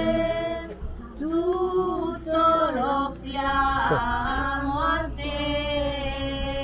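A group of voices, men and women together, singing an Italian hymn to Saint John the Baptist. They hold long notes and move slowly from pitch to pitch between the lines of the verse.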